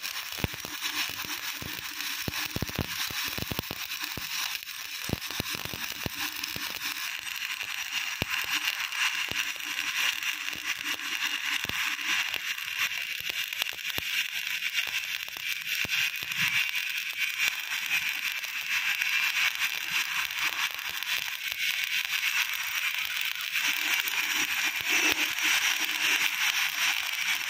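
Stick-welding arc crackling steadily as an E6013 electrode burns, running a bead on a flange-to-pipe joint in carbon steel. The arc holds unbroken, a continuous fine crackle.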